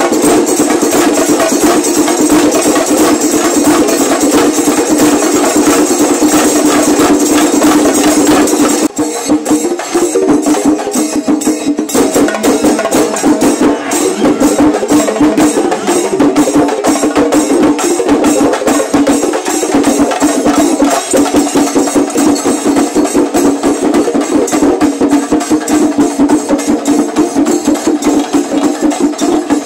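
Shinkari melam: chenda drums beaten fast with sticks in a dense, driving rhythm, with ilathalam hand cymbals clashing over them. About nine seconds in the cymbal ringing drops back for a few seconds, then returns.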